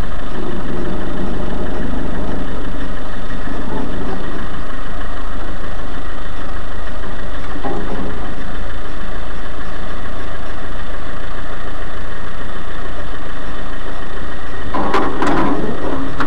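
Off-road 4x4's engine idling steadily, heard from inside the vehicle. Near the end a run of knocks and rattles starts as the vehicle moves.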